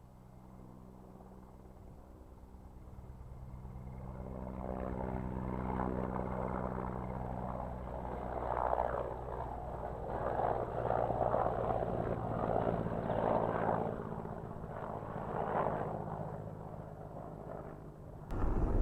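A passing motor: a steady engine hum that grows louder over several seconds, holds with a pulsing, churning noise, then fades away. A sudden louder sound cuts in near the end.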